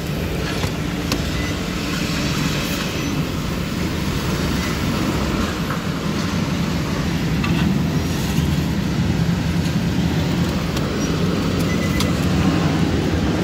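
A Nissan being driven slowly, heard from inside the cabin: the engine and tyres make a steady low noise, with a few faint clicks.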